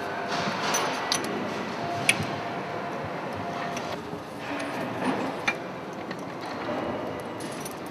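A few sharp metallic clicks from the hydraulic stud-tensioning jacks and their fittings on a marine diesel's cylinder head being handled, over steady workshop background noise.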